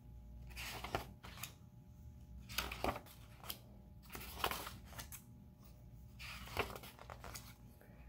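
Pages of a hardcover picture book being turned by hand: several papery swishes and rustles, each ending in a light slap as the page settles.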